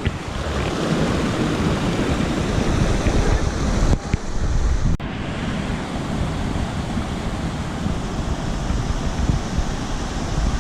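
Wind buffeting the camera microphone: a steady rushing noise with a heavy, uneven low rumble, broken by abrupt cuts about four and five seconds in.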